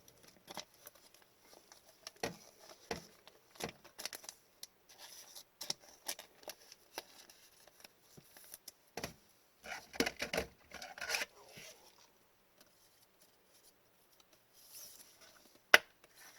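Hockey cards and their plastic sleeves being handled on a table: scattered light taps and clicks, a stretch of rustling about ten seconds in, and one sharp click near the end.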